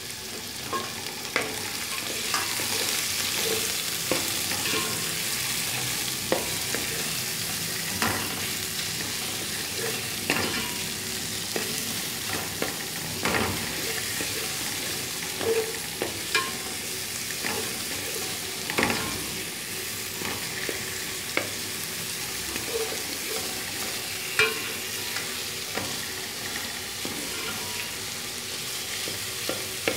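Sliced onions sizzling in hot oil in a metal pot, stirred with a steel spoon that scrapes and knocks against the pot every one to three seconds.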